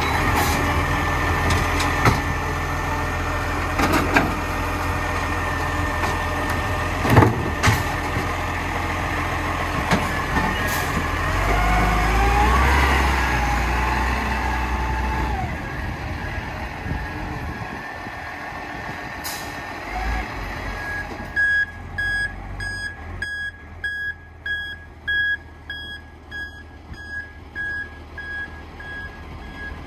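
Side-loading garbage truck working: its engine runs under load with sharp clanks and a sliding whine from the bin-lifting arm. About two-thirds of the way through, the reversing beeper starts, sounding a steady series of beeps.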